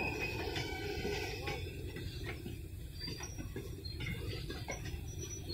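Steady low rumble of a train moving slowly through the rail yard, with a few faint clicks over it.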